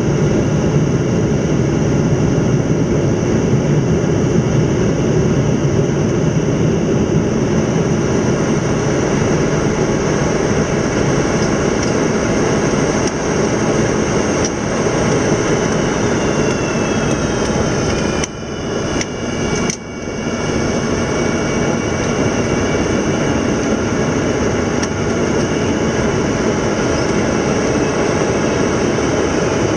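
Cockpit noise of an Antonov An-124 Ruslan rolling down the runway after landing: a loud, steady rumble from its four Progress D-18T turbofans, wheels and airflow. About halfway through, a high whine falls in pitch and the noise dips briefly twice.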